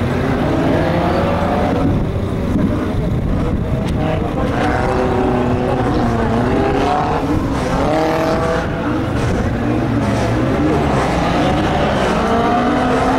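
Modified Fiat 126's two-cylinder engine revving up and dropping back again and again as the car accelerates and slows between tight turns, its pitch rising and falling several times over a low rumble.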